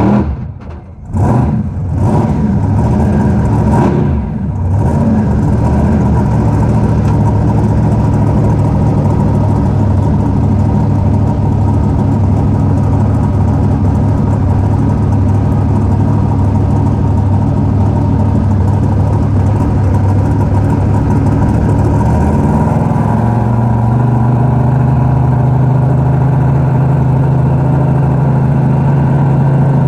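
Raminator monster truck's engine heard from inside the cab, running steadily after dropping off briefly twice in the first few seconds. About 23 seconds in it steps up to a slightly higher, steady pitch.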